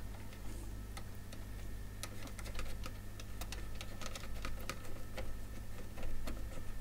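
Light, irregular clicks and ticks, several a second, from wires and clip leads being handled and connected, over a steady low electrical hum.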